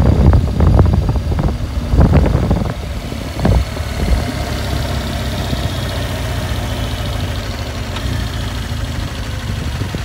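Motorcycle engine running at low road speed. For the first few seconds there is loud, uneven low rumbling, then it settles into a steady hum.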